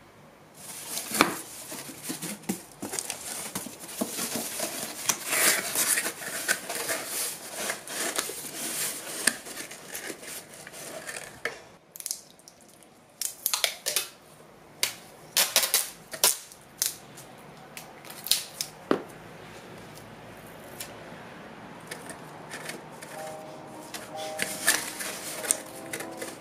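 Corrugated cardboard box being folded and assembled by hand: flaps scraping and rubbing against each other, then a run of sharp taps and knocks as the cardboard is pushed into shape.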